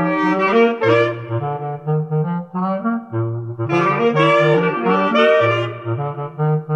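Clarinet quartet playing a jazz tune in four parts: a low clarinet plays short, repeated bass-line phrases beneath three clarinets playing the melody and harmony.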